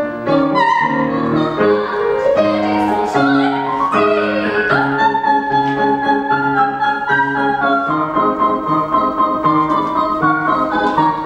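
Soprano singing an operetta aria to grand piano accompaniment: quick coloratura runs climbing and falling in the first few seconds, then long held notes with vibrato over the piano's repeated chords.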